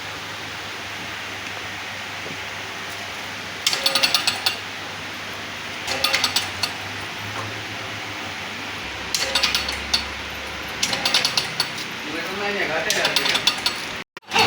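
Metal hand tools clicking and clinking against metal in five short bursts of rapid clicks, over a steady hiss.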